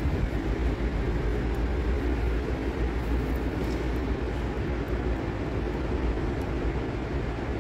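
Steady low rumble of an underground light-rail station, with no train arriving or leaving.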